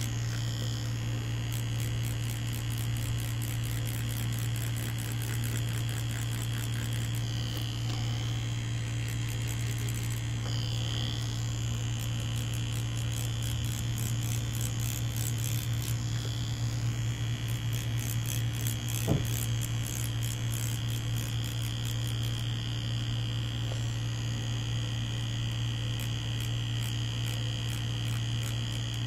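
Mummy Anubis tattoo machine running with a steady electric buzz as it drives a liner needle cartridge into fake skin. A single sharp click about two-thirds through.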